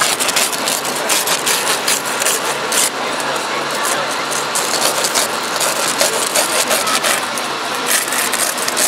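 A hand windscreen saw rasping through a car's laminated windscreen in repeated strokes as the glass is cut away for a rescue, over a steady engine hum.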